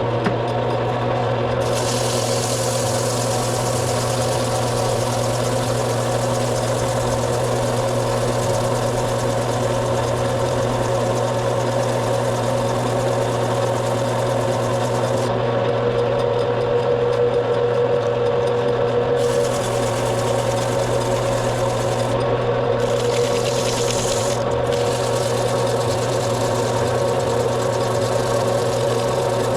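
Metal lathe running at a steady speed while parts are sanded on it, the sandpaper's hiss coming and going as it is pressed to and lifted from the spinning work.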